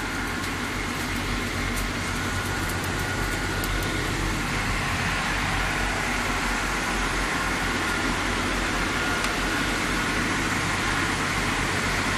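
Steady din of running machinery at a welding site: a low engine-like hum under a constant hiss, growing slightly louder over the first few seconds.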